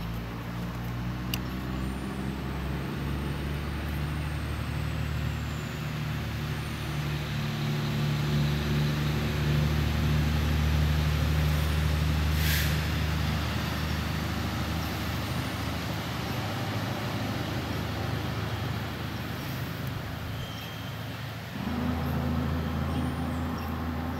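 A large vehicle engine running steadily with a low hum. There is a short hiss about halfway through, and near the end its note shifts and it gets louder.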